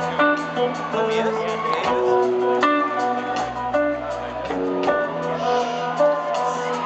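Live rock band playing: electric guitars, bass and drums with regular drum hits, recorded from the audience in an arena.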